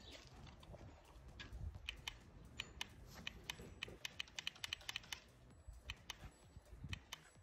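Faint, irregular sharp clicks, many in quick succession, thickest around the middle.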